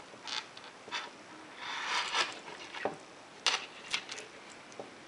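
Handling of a Casio Databank DB-150 digital watch and its metal link bracelet in the fingers: a string of short sharp clicks and clinks, with a rubbing rustle about two seconds in as the watch is turned over.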